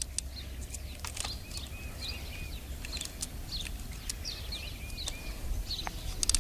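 Small birds chirping again and again in the background, in short sweeping notes, with a few light clicks and a low steady rumble underneath.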